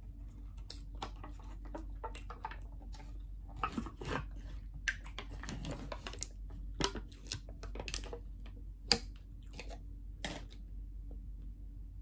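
Plastic yogurt cup being handled and its lid peeled open: an irregular run of crackles and clicks, with one sharp, louder click late on.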